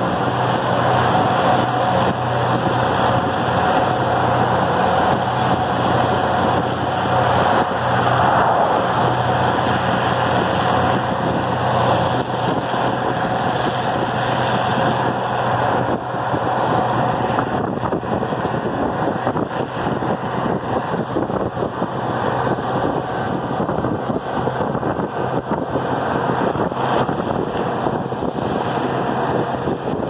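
Farmall diesel tractor engine running steadily at road speed, mixed with the road and wind noise of the car following it. The engine's steady hum thins out a little past halfway, leaving mostly road and wind noise.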